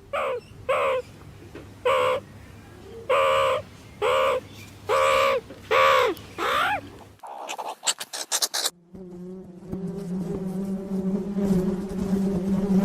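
An animal calling over and over in short cries that rise and fall in pitch, about ten of them. After a brief rattle, a steady insect-like buzz starts about nine seconds in.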